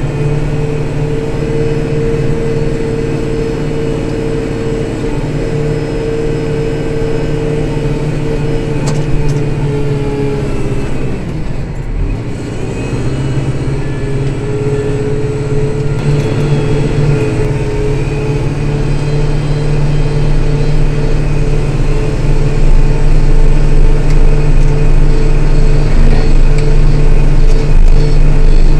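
Kubota Grand L 5740 diesel tractor engine running steadily under load. Its pitch dips briefly a little under halfway through, then it picks back up and grows louder toward the end.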